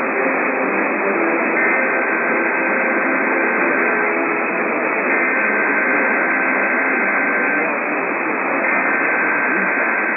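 Heavy radio static, hissing steadily from a sudden start. Under it are the faint data tones of an Emergency Alert System (SAME) header: three bursts of a couple of seconds each, about a second apart.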